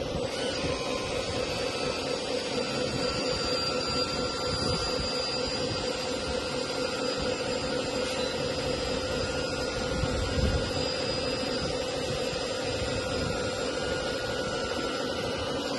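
Electric hydraulic pump of a metal 1/14 8x8 RC hook-lift truck running with a steady whine as the hook arm hauls a steel container up onto the truck bed. A brief low thump about ten seconds in.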